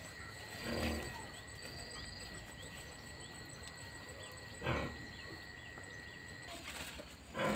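Outdoor garden ambience: a steady high-pitched whine, with three brief rustling or handling noises, about a second in, near the middle and at the end.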